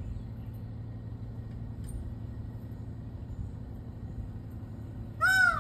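Indian peafowl (peacock) giving one short, loud, wailing call that rises and then falls in pitch, near the end. Under it runs a steady low rumble.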